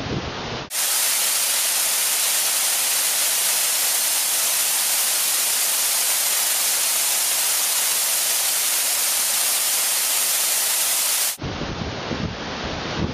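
Waterfall rushing in a steady, even hiss, strong in the highs and thin in the lows. It starts abruptly about a second in and stops abruptly near the end. Around it the falls are heard with wind buffeting the microphone.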